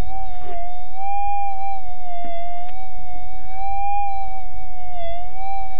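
Minelab GPZ 7000 metal detector's audio tone: a steady electronic hum whose pitch wavers, rising slightly about a second in and again about four seconds in. The wavering is detector noise over the freshly dug hole, which the prospector cannot tell apart from a faint target signal.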